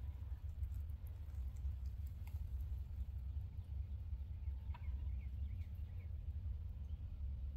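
Outdoor woodland ambience with a low steady rumble throughout, and a few faint short bird calls and clicks between about two and six seconds in.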